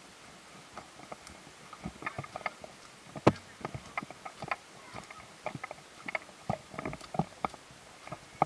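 Irregular footsteps crunching fallen leaves and twigs on a debris-covered path, with one sharper knock about three seconds in.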